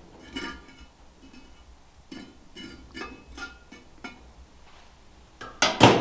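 Metal tongs clinking against charcoal briquettes and the cast-iron Dutch oven lid as the coals are arranged: a run of light ringing clinks, then a louder metallic clatter near the end.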